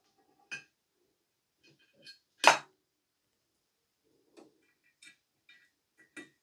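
Small clicks and taps of connectors being fitted by hand to a CRT monitor: the anode lead's rubber cap and the neck-board socket on the picture tube's pins. One sharp, loud click comes about two and a half seconds in.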